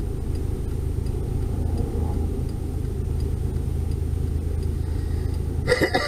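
Steady low rumble of a taxi cab's engine and cabin inside the car, with a faint regular ticking about one and a half times a second, the kind a turn-signal relay makes. A brief louder sound comes near the end.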